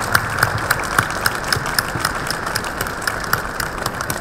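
Audience applauding: many hands clapping at once, easing off slightly toward the end.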